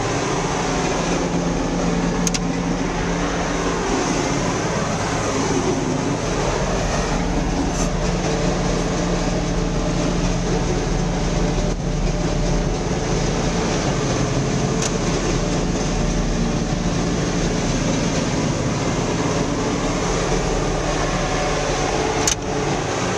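Tub grinder grinding round hay bales, with a steady loud machine drone and a constant low hum. A few faint sharp ticks are heard.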